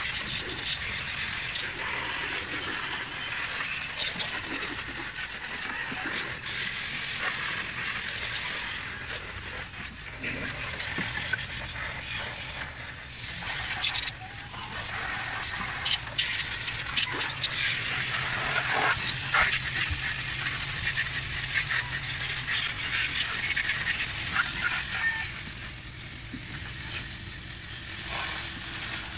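Water from a garden hose spraying against a van's front grille and condenser, splashing off the bumper and dripping onto wet concrete, with scattered clatters and splashes. The spray eases for a moment near the end.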